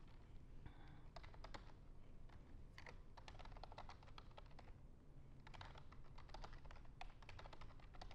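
Computer keyboard being typed on in several quick runs of faint key clicks as an email address and password are entered.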